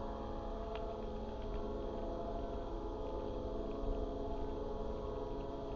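A steady hum made of several even tones, with a low rumble underneath.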